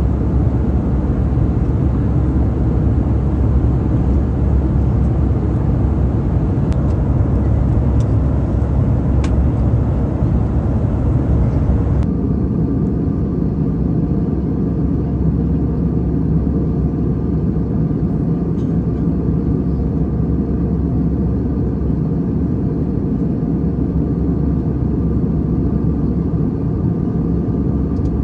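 Steady cabin noise of an Airbus A320 in cruise: a low rush of airflow and engine drone. It turns a little duller about twelve seconds in.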